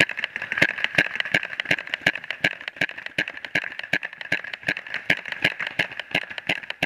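Paintball markers firing in quick, uneven strings of sharp pops, roughly four a second, over a steady hiss.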